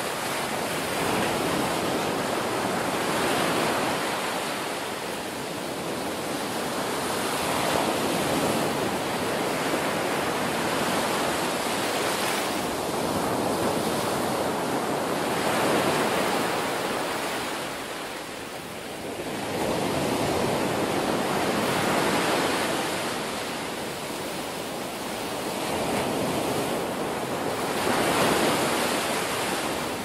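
Ocean surf breaking and washing up a sandy beach, swelling and fading every few seconds.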